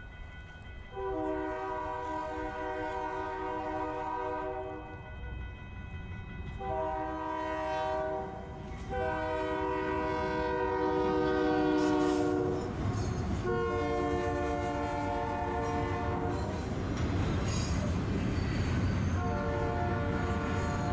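Diesel freight locomotive's multi-chime air horn sounding five long blasts of a few seconds each, the last still sounding at the end, over the low rumble of the train, which grows louder in the second half.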